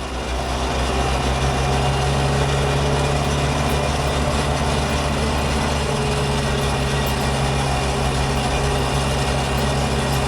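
Landini Blizzard 65 tractor's turbocharged diesel engine running steadily at road speed, heard from inside the cab; it grows a little louder over the first second or two, then holds even.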